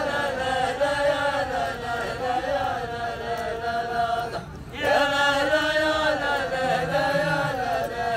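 A row of men chanting a rajaz verse in unison: long, drawn-out sung phrases with a short break about halfway through.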